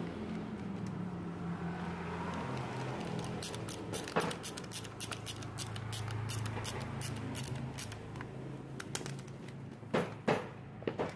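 A screwdriver clicking in short, evenly spaced strokes, about three a second for some four seconds, as screws are driven into the plastic housing of a rotary hammer, over a low steady hum. Near the end comes a cluster of loud knocks as the tool is turned over on the stone floor.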